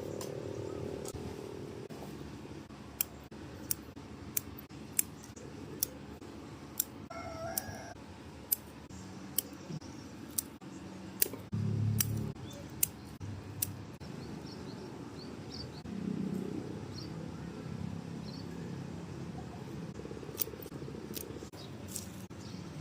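Bonsai pruning scissors snipping: a run of sharp single snips, about one every half second to a second, for roughly ten seconds, then a few more snips near the end.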